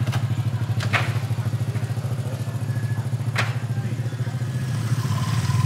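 Motorbike engine idling just after being started, a steady low pulsing note. Two sharp clicks cut through it about one second and three and a half seconds in.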